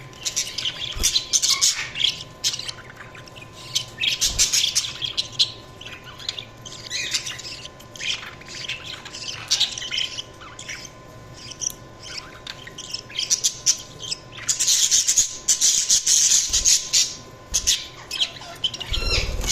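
Budgerigars chirping and chattering in quick runs of short high calls with scattered squawks, busiest and loudest about three quarters of the way through.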